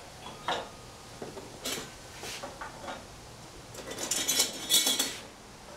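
Galvanized steel Simpson Strong-Tie connectors clinking in a cardboard box as they are handled: a few separate clinks, then a longer jangle of metal on metal about four seconds in.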